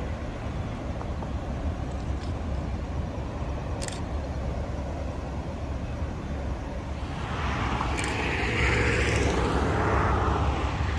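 Freight train's diesel locomotives running with a steady low rumble, growing louder from about seven seconds in as the train draws closer.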